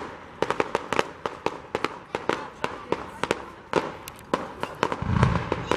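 Fireworks going off in quick succession: many sharp cracks and pops, several a second, with a low boom near the end.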